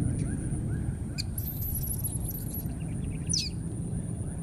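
High, thin animal squeals over a steady low rumble and a steady high whine. One squeal wavers for about a second, starting a little over a second in, and a sharp falling squeak comes near the end. Faint short chirps repeat about three times a second underneath.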